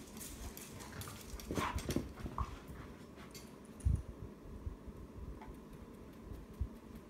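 A young Labrador gives a few short whimpers about a second and a half in, among light clicks, with a single thump about four seconds in.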